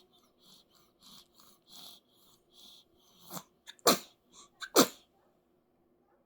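Baby breathing in quick, soft, snuffly puffs, then sneezing twice, loud and sharp, about four and five seconds in.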